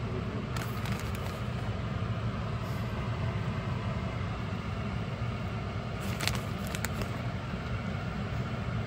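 A steady low hum runs throughout, with a few brief clicks and rustles from hands handling a plastic zip bag of shredded cheese over a metal sheet pan, about half a second in and again around six to seven seconds in.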